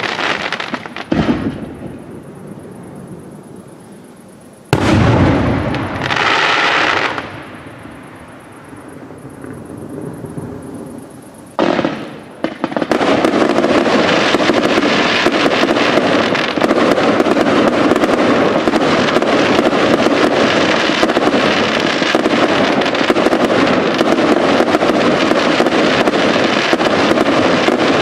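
Fireworks display: a few single shell bursts, each with a long echoing tail, then from about halfway a dense, continuous barrage of rapid crackling reports.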